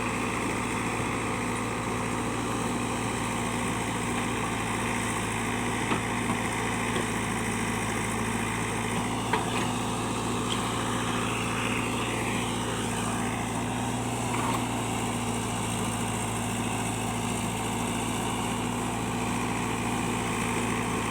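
Diesel engine of a JCB backhoe loader running steadily at an even pitch, with a couple of faint knocks.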